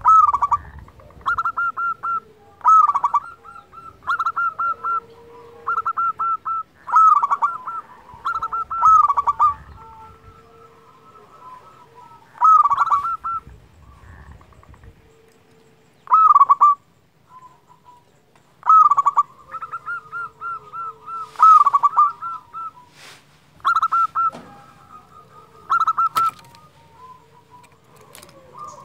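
Zebra dove (perkutut) singing: short phrases of quick, staccato cooing notes, each phrase repeated every couple of seconds.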